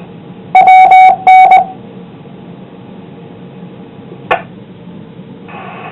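Amateur radio repeater's courtesy tone after a transmission ends: three short, loud beeps at a steady pitch. Low radio hiss follows, with a single click about four seconds in, and the hiss rises just before the next station keys up.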